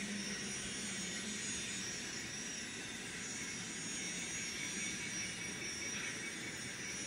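Sound decoder of an N-scale model of a Union Pacific 8,500 hp gas-turbine locomotive playing its steady turbine whine and rumble through the model's small onboard speaker.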